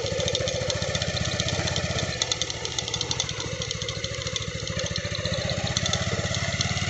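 Motorcycle engine running as the bike rides slowly along a dirt trail, easing off about two seconds in and picking up a little again near the end.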